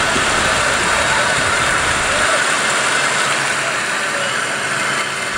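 Beach ambience: a steady rushing noise of surf and wind, with the low rumble easing off about two seconds in.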